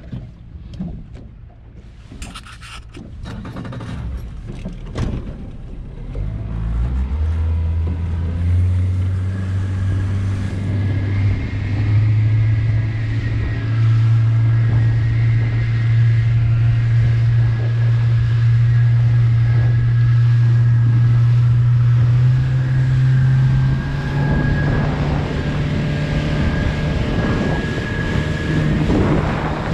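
Fishing boat's engine running and picking up speed. Its pitch climbs in steps over the first dozen seconds and steps up again about three quarters of the way through, then holds steady. A few knocks come in the first few seconds.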